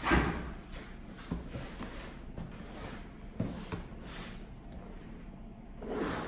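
Shrink-wrapped cardboard box being handled and turned on a table by hand: cardboard and plastic wrap rubbing and sliding, with a few light knocks. The loudest rub comes right at the start.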